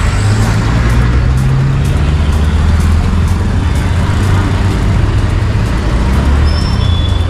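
Auto-rickshaw ride from inside: its small engine running steadily under a low rumble of road and traffic noise.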